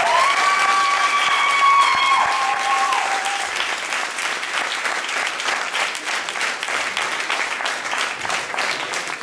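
Audience applauding, with high-pitched cheering voices held over the first three seconds before the clapping carries on alone.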